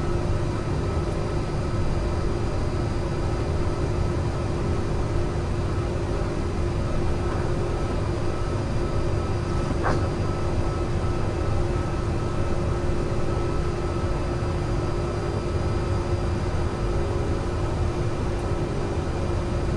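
Airbus A330 flight deck noise in flight: a steady rush of air over a low rumble, with a constant hum running through it. One faint click about halfway through.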